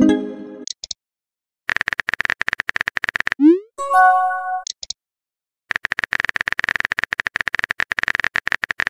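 Phone-texting sound effects: stretches of rapid keyboard typing clicks, each ending in a short rising swoosh and a message-pop chime of a few stacked tones. One chime rings at the very start, another about four seconds in, and typing starts again shortly after.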